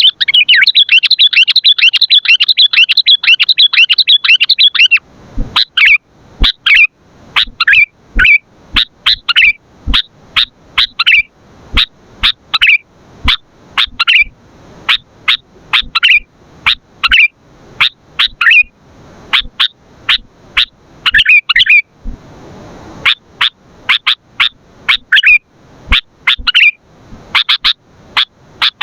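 Sooty-headed bulbul (kutilang) calling loudly. It opens with a fast unbroken run of chirps for about five seconds, then gives separate short, sharp chirps about one or two a second, with a brief pause a little past twenty seconds.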